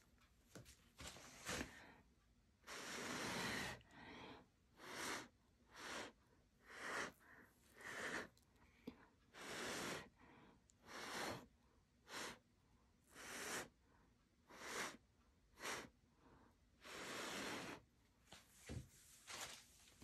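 A person blowing short, repeated puffs of breath onto wet acrylic paint to bloom it, roughly one puff a second, with two longer blows.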